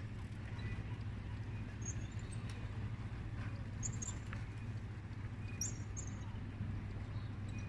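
Open-air street ambience: a steady low rumble, with a few faint, short high squeaks or chirps around four and six seconds in.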